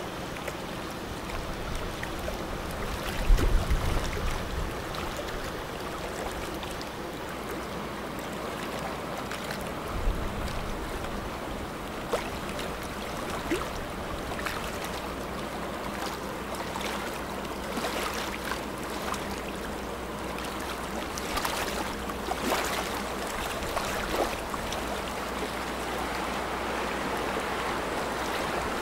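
Steady rushing and splashing of water as a fast-moving container ship's bow wave and wash pass close by, with a low hum underneath. There is a brief low rumble about three seconds in and scattered sharp splashy ticks later.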